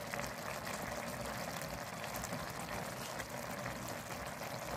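Chicken and rice in tomato sauce simmering in a pan: a steady soft bubbling with many small pops as the rice soaks up the last of the cooking water.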